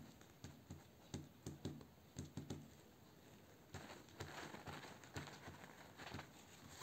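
Faint, irregular soft taps and rustling of a crumpled paper towel being dabbed onto wet watercolour paper, blotting wine paint to lift colour from the leaf tips, with a brief pause midway.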